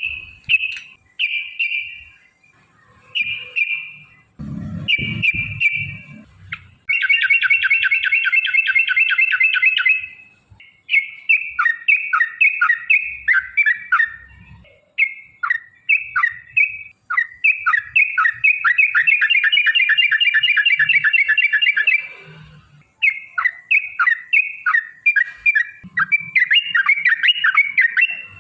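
Yellow-vented bulbul (trucukan) singing in short bubbly chirping phrases and long rapid rolling runs, as used for a lure recording to set other bulbuls singing. A few low thumps come about five seconds in.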